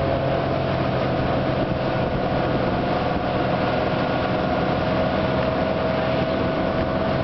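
Motorboat engine running at a steady speed while towing a wakeboarder, with an even rush of water under it.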